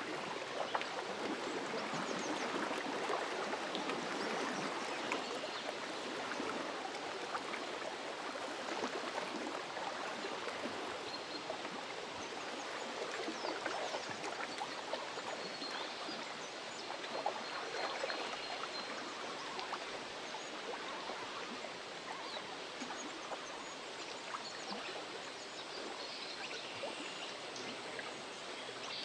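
Lake water lapping at the shore: a steady, dense patter of small splashes and trickles.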